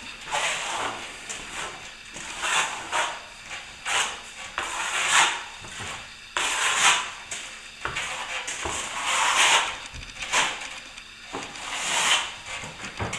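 A steel plastering blade spreading and smoothing a third coat of plaster compound over a taped crack in plasterboard. The scraping strokes come about one a second, some short and some drawn out.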